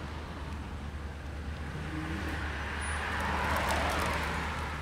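BMW i8 sports car driving past close by, its noise swelling to a peak about three and a half seconds in and then easing off, over a steady low rumble.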